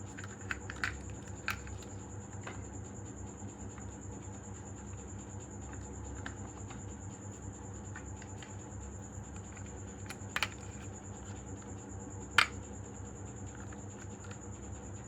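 Marbles on a wooden HABA slope marble run: a low steady rolling rumble with scattered sharp clicks of glass on wood, several in the first few seconds and the loudest about twelve seconds in.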